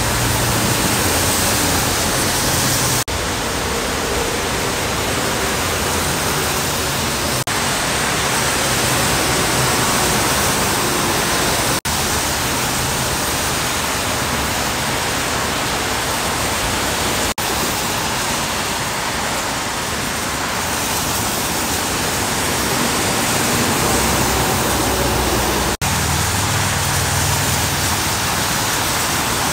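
Steady hiss of heavy rain and tyres spraying along a wet freeway, with a low rumble of passing trucks and cars underneath. The noise breaks off for an instant a few times.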